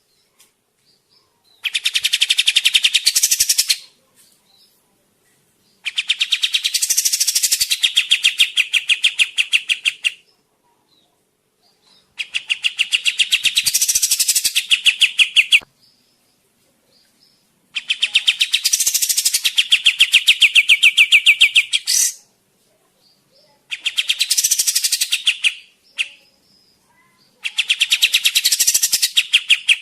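Kapas tembak bird singing in repeated bouts of a fast, rattling trill. Each bout lasts a few seconds, with short pauses between them.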